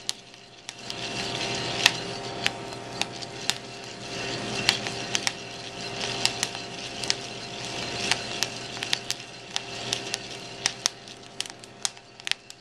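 Coffee beans popping in first crack while roasting in a cast iron pan: sharp, irregular cracks about two a second, over the rustle and scrape of the beans being stirred in the pan.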